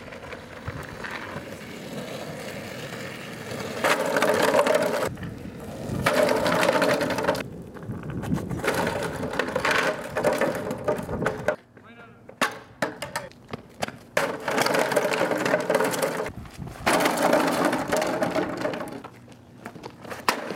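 Skateboard wheels rolling on asphalt and blue plastic milk crates clattering as they are crashed into and knocked over, with people shouting.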